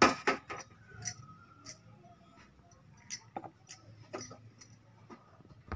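Sharp clinks and taps of utensils against a stainless steel bowl while ground spices are tipped in, the loudest right at the start, then about a dozen scattered lighter clicks.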